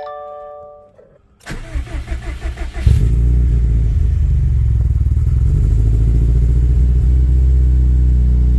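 A chime rings briefly, then the starter cranks the freshly rebuilt Subaru EJ257 turbocharged flat-four for about a second and a half. The engine catches about three seconds in and settles into a steady cold-start idle.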